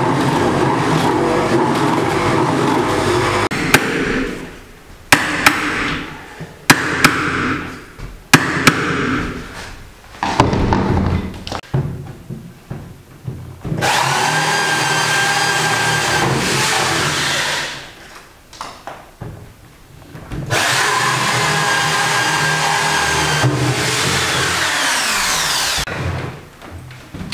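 Handheld electric drill boring a mortise slot into the edge of a wooden door, running in long bursts with pauses between them. Between the first runs come a handful of sharp knocks.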